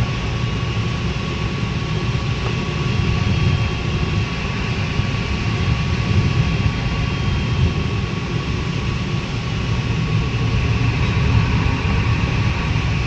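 Steady rush of airflow in a LAK17B FES glider's cockpit in gliding flight, a deep even noise with a faint steady high tone running through it.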